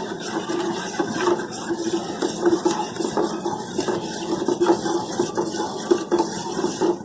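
Metal spoon stirring hot milk in a metal pan, with continuous irregular scraping and clinking against the pan, as palm sugar candy dissolves in the milk.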